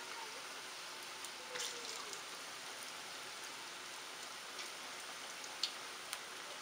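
Cabbage and onion bondas deep-frying in hot oil on a low flame: a steady sizzle with a few sharp pops, one about a second and a half in and two near the end.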